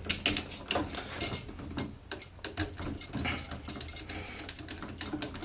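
Screwdriver clicking and scraping on the terminal screw of a spec-grade Hubbell duplex outlet while a copper wire is fastened under it: a run of small, irregular metallic clicks.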